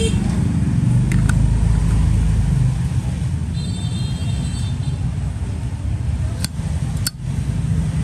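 Steady low rumble of road traffic, with a few sharp clicks: two about a second in and two more near the end.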